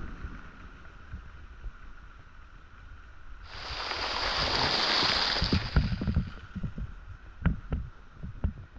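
Fast-flowing flooded cave river: a low rumble with a hiss of rushing water that swells and fades over about two seconds midway, followed by scattered knocks and bumps.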